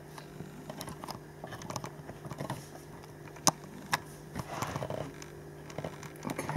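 Faint camera handling noise: small scattered clicks and rubbing over a steady low hum, with two sharper clicks about three and a half and four seconds in.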